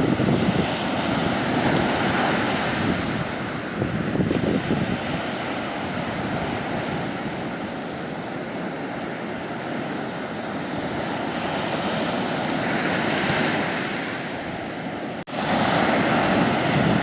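Sea waves washing onto the shore, a steady rushing surf that swells and eases over several seconds. About 15 seconds in the sound drops out for an instant, then a louder wave surges in.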